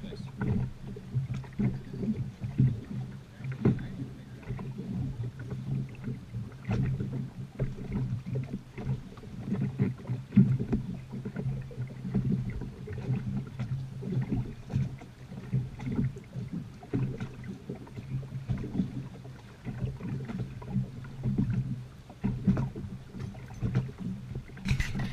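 Drag boat's inboard engine idling steadily, still in its break-in period, with irregular knocks on the boat.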